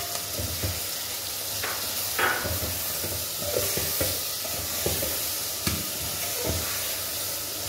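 Cauliflower, peas and freshly added tomato sizzling in hot oil in a pressure cooker, stirred with a metal ladle that scrapes and knocks against the pot now and then.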